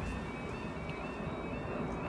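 Level crossing warning alarm sounding, a high two-note yodel repeating about twice a second, as the barriers come down. A car drives over the crossing underneath it.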